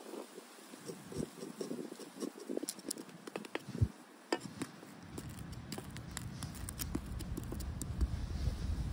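Pancake frying in a small steel frying pan over a camp stove: scattered faint crackles and light taps as a wooden spatula presses it. From about halfway through, a low rumble of wind on the microphone joins in.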